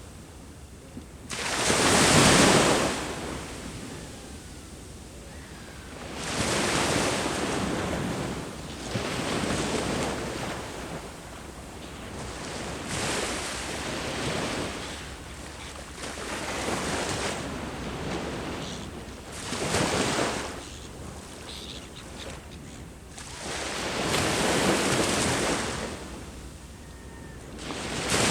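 Sea waves breaking on the shore, one wash of surf every few seconds, the loudest about two seconds in, over a steady low rumble of the sea. Some wind noise on the microphone.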